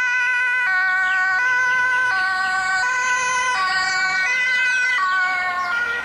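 Two-tone siren of a Red Cross ambulance, alternating evenly between a high and a low note, each held for about three-quarters of a second, as the ambulance runs with blue lights on. It goes a little quieter near the end as the ambulance passes.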